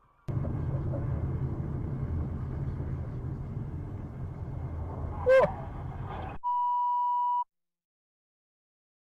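Dashcam recording of a car in motion: steady low road and engine rumble heard from inside the cabin, with one brief loud horn-like blast about five seconds in. The rumble cuts off abruptly and a steady electronic beep at a single pitch sounds for about a second, followed by silence.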